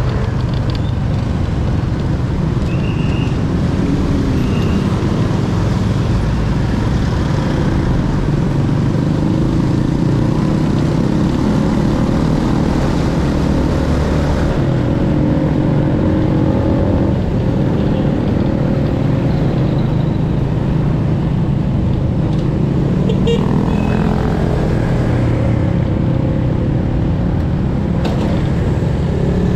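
Riding sound from a Honda Wave 100 underbone motorcycle: its small single-cylinder four-stroke engine running, with its pitch rising and falling, under a steady rush of wind and road noise.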